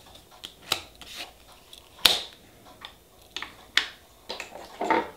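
Nail-stamping tools at work: a string of short scrapes and clicks as polish is scraped across a metal stamping plate, the loudest about two seconds in and a longer scrape near the end.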